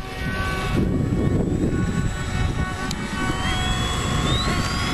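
Electric motor and propeller of a home-made RC model plane whining, the whine rising in pitch from about three seconds in as the throttle opens for the take-off roll; the motor is a 540-watt unit. Wind buffeting the microphone adds a heavy, uneven low rumble.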